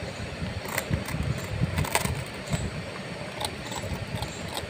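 Labrador puppy chewing crusty bread: irregular crunches and wet mouth clicks, the sharpest about one and two seconds in, over a steady low rumble.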